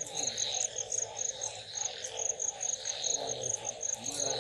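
Crickets chirping in a steady, rapid high-pitched pulse, with a chorus of other night insects underneath.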